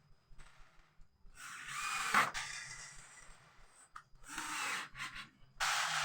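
Wood rubbing and scraping in three rasping bursts: a longer one, a short one, and one that starts near the end.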